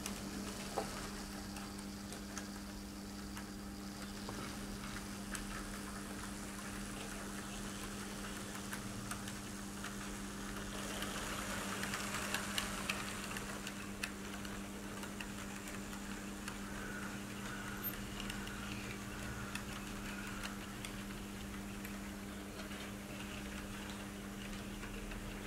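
Märklin H0 model train of a BR 220 diesel locomotive and coaches running on metal M-track: a steady electric hum with many small wheel clicks over the rail joints, louder about halfway through as the coaches pass closest.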